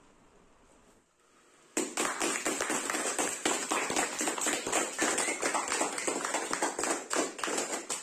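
Applause: hand clapping that starts suddenly about two seconds in and stops near the end.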